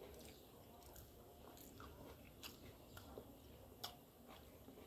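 Faint chewing, with a few light clicks of a metal fork against a glass plate.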